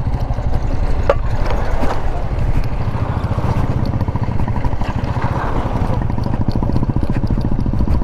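Royal Enfield Meteor 350's single-cylinder engine pulsing steadily as the motorcycle rides over a rough, rocky dirt track, with scattered knocks and rattles from the bike over the stones.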